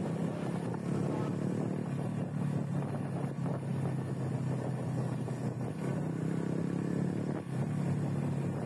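Motorcycle engine running steadily at cruising speed, a low even drone with a brief dip near the end.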